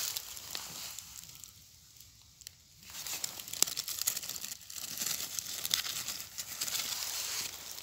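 Dry fallen leaves rustling and crackling as a hand pushes into the leaf litter to pull up a mushroom. A dense run of crackles begins about three seconds in.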